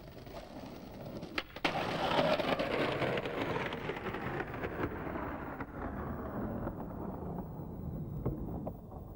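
Skateboard wheels rolling on concrete and the trucks scraping along a stone ledge in a grind, with a few sharp clacks of the board hitting the ground, two close together early on and two more near the end.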